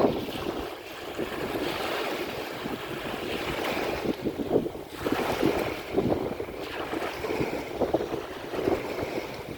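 Waves breaking and washing onto the shore, with wind gusting on the microphone.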